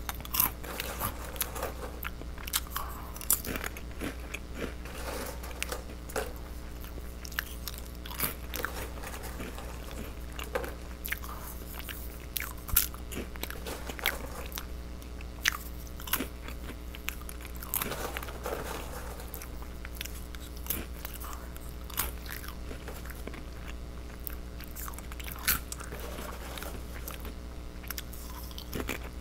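Close-miked crunching and chewing of off-brand Goldfish-style crackers: irregular crisp crunches over a steady low hum.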